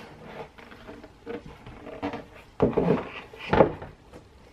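Rigid cardboard presentation box being opened by hand: the lid rubs and slides off the base with small clicks, and two louder knocks about two and a half and three and a half seconds in as the lid is handled and set down on the desk.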